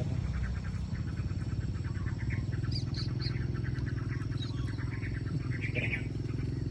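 Small birds chirping in short, scattered calls over a steady low mechanical hum.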